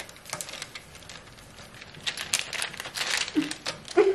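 Baking paper crinkling with small crackles as hands work plastic cookie cutters out of hardening dalgona honeycomb candy on a tray; the crackling gets busier about two seconds in.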